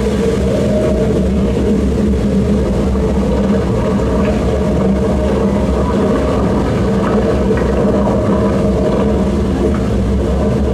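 A loud, steady low rumbling drone with held tones from a projection show's soundtrack, played over outdoor loudspeakers.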